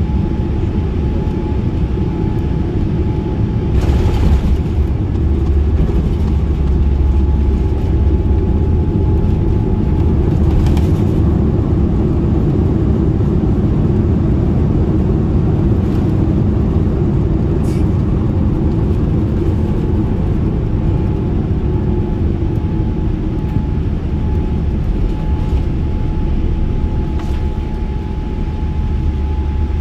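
Cabin noise of a Boeing 787-10 rolling on the ground after landing: a steady low rumble with a thin steady whine over it and a few short knocks spread through it.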